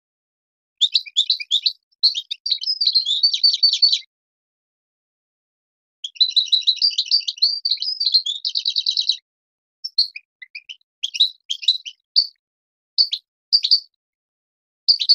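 A Marrakchi-type European goldfinch singing: two long, fast twittering phrases, the second ending in a rapid trill, then a string of short separate notes.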